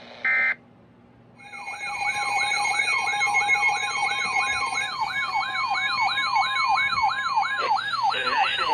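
Electronic siren in a fast yelp, its pitch sweeping up and down about three times a second, layered with other wavering siren tones. It starts about a second and a half in, after a short burst of data tones that marks the end of an emergency alert message.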